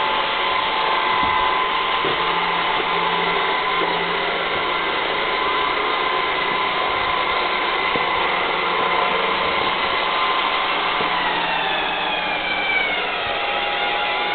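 Robot vacuum cleaner running: a steady motor whine over a noisy hiss, its pitch falling a little about eleven seconds in.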